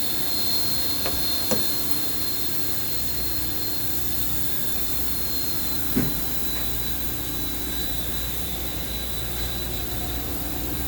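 Steady mechanical drone with a thin high whine over it, and one short knock about six seconds in.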